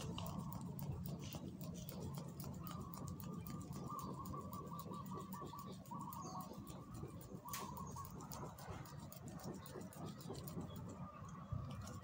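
A woven hand fan waved over a charcoal grill, with faint quick ticking throughout. A thin, high held tone, broken a few times, runs from about a second in to about eight seconds.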